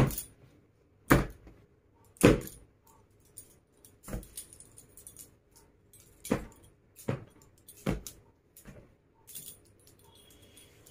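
Bangles clinking on a woman's wrists as she handles and shakes out cloth: about nine sharp jingling clinks at irregular intervals, roughly one a second.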